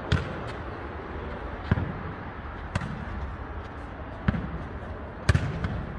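Jokgu ball being kicked and bouncing on the court in a rally: about five sharp thuds at irregular intervals roughly a second apart, over steady background noise.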